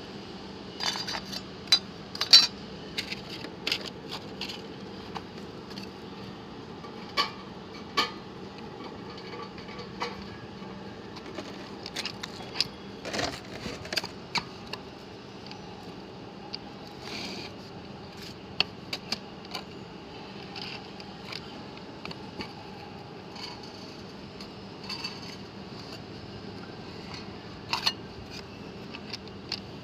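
Thin sheet metal clinking and clanking as it is handled and cranked through the rolls of a hand-operated 3-in-1 shear, brake and slip-roll machine. The sharp metallic clinks come irregularly, the loudest near the start, over a steady low hum.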